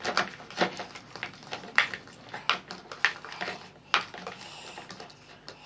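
Plastic toy spoon knocking and scraping against the inside of a plastic toy bowl as it is stirred: irregular clicks, about two a second.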